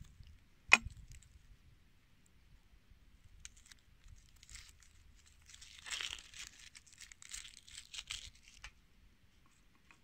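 Papery skin of a red onion being peeled off by hand, a crackly tearing rustle from about four and a half seconds in until near the end. Just under a second in there is a single sharp knock: the chef's knife being set down on the wooden cutting board.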